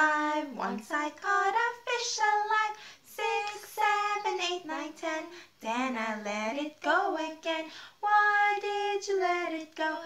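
Two women singing a children's action song together, with no instrumental accompaniment.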